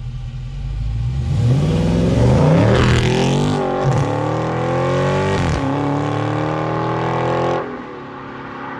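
Dodge Charger Scat Pack's 392 HEMI V8 through its stock exhaust under hard acceleration: the revs climb and drop back at each upshift, about three times, then the sound falls off sharply near the end as the throttle is lifted.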